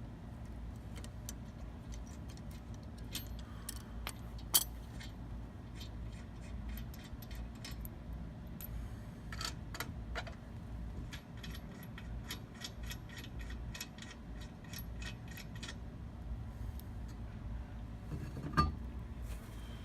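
Small metal parts and tools clinking and clicking irregularly during hand work on a car wheel, with two louder knocks, one about four seconds in and one near the end, over a low steady rumble.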